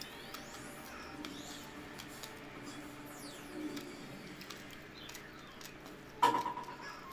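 Quiet eating sounds: fingers working sticky yellow glutinous rice on a plate, with soft chewing and faint clicks. About six seconds in, a sudden sharp knock with a short ring is the loudest sound.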